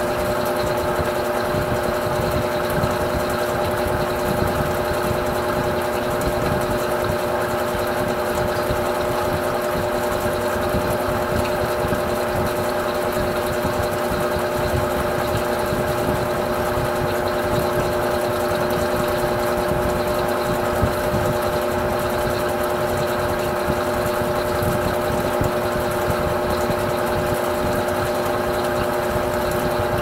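Electrolux Silent Control 12 kg (LAC12) top-loading washing machine on a normal spin, its motor and drum spinning at a constant speed with a steady whine of two held tones over a rushing hum. This is a normal-speed spin to wring out clothes that the slower Silent Cycle spin left soaking wet.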